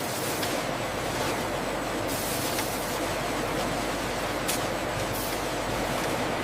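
Steady factory machinery noise: an even rumbling hiss with a low hum underneath and a few short hissing bursts.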